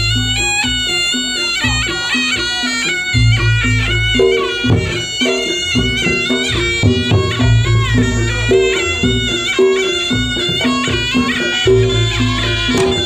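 Reog Ponorogo gamelan accompaniment for the Bujang Ganong dance. A slompret, a shrill double-reed shawm, plays a bending, ornamented melody over a steady repeated gong-chime note, deep gong notes and drumming.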